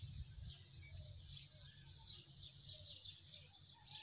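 Small birds chirping faintly and continually, a string of quick, high, downward-sliding chirps, over a low background rumble.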